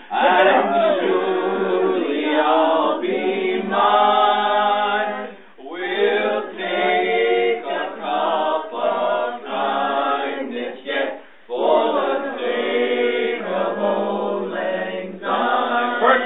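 A group of people singing a song together, with a long held note about four seconds in and short pauses between lines.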